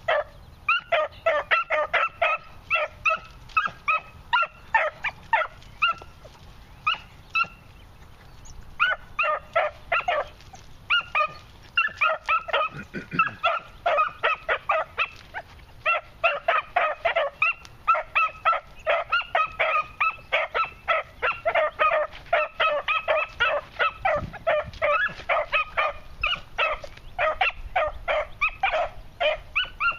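Beagle pups barking in quick, short, repeated barks, several a second, with a brief break about eight seconds in, as hounds give mouth while working scent in brush.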